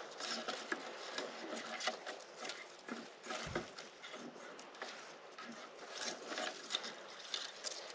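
Faint, irregular crackling and rustling of forest ground cover being worked over during metal detecting, with one soft low thump about three and a half seconds in.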